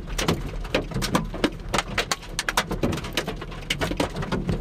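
Raindrops tapping irregularly in quick succession, about six or seven sharp taps a second, during a tornado-producing thunderstorm.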